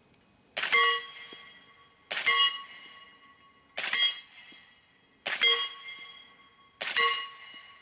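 Five suppressed shots from a .300 Blackout AR-15, about one and a half seconds apart. Each shot is followed by the clang of the bullet hitting a heavy steel plate, which rings on and fades between shots.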